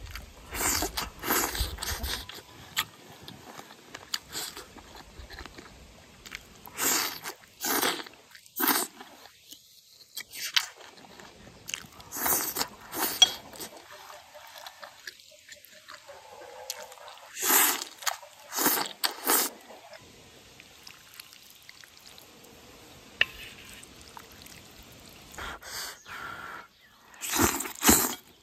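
Close-up mouth sounds of a person eating cured pork, Houttuynia leaves and noodles: biting, chewing and smacking in short irregular bursts every few seconds, with noodles slurped in near the end.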